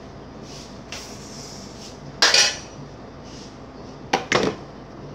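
Dishes and kitchen utensils clattering. There is a loud clatter lasting about half a second about two seconds in, then two sharp clinks in quick succession near the end.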